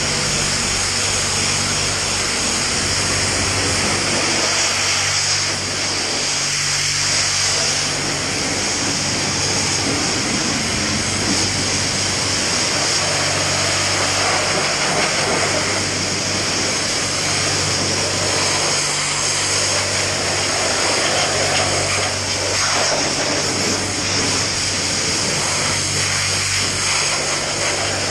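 High-pressure water jet from a car-wash lance hissing steadily as it rinses foam off a KTM dirt bike, with a low, steady hum underneath.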